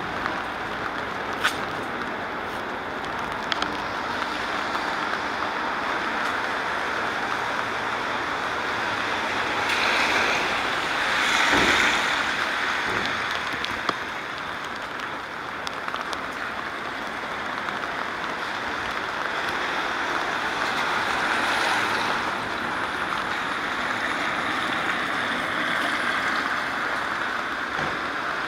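Steady hiss of rain on a wet city street, swelling louder twice for a few seconds like cars passing on wet tarmac, with a few light ticks of drops.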